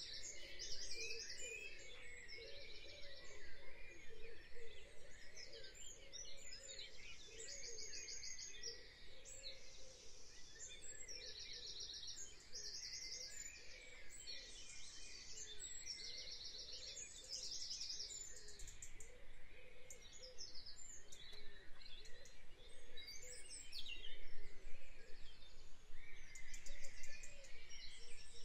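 Birdsong over a steady outdoor background hiss: a bird repeats short, rapid high-pitched trills, each well under a second long, again and again, with fainter chirps in between.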